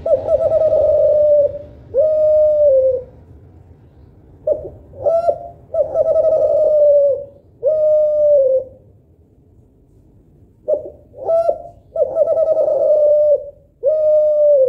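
Kelantan spotted dove (tekukur) cooing in a loud, clear voice: three phrases about five and a half seconds apart, each made of a couple of short notes, a long held coo and a shorter final coo that drops in pitch as it ends.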